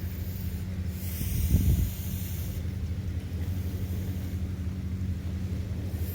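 Wind rumbling on the microphone over a steady hiss of surf, with a louder surge about one and a half seconds in.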